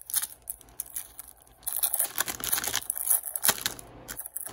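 Crinkling and rustling of a trading-card pack wrapper and cards being handled, in quick, irregular scratchy rustles.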